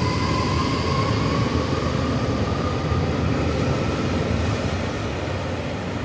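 JR Hokkaido 733 series 3000-number electric train pulling out of the platform. Its Mitsubishi IGBT VVVF inverter whines in a steady tone that slowly rises in pitch as it accelerates, over the low rumble of wheels and running gear. The sound fades near the end as the cars leave.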